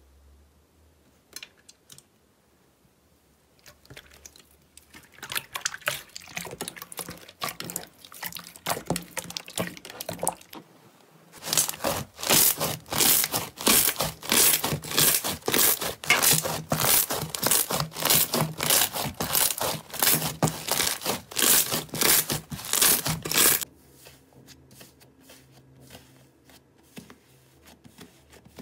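Slime being pressed and squeezed by hand, giving off rapid crackling and popping clicks. The clicks are sparse at first, turn dense and loud through the middle, then drop to faint crackles near the end.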